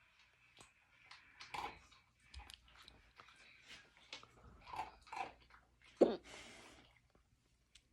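Dogs eating from their bowls: irregular crunching and chewing, a few bites a second at most, with one louder sudden sound about six seconds in.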